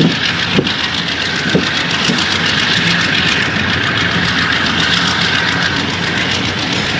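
Passenger train running along the line, heard from a coach: a steady rush of wheels on rails and air, with a diesel locomotive's engine humming beneath. Two short squeaks come about half a second and a second and a half in.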